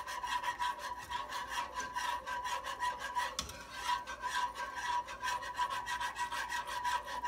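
Wire whisk beating a béchamel sauce in a saucepan, a rapid, even scraping of about five strokes a second as the sauce is worked thicker. A faint steady tone runs underneath.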